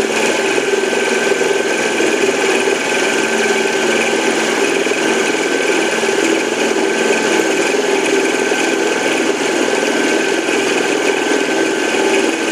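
A 7x10 mini lathe set up for milling, running steadily with its cutter taking a cut in a metal workpiece. It makes an even mechanical noise with a steady high whine.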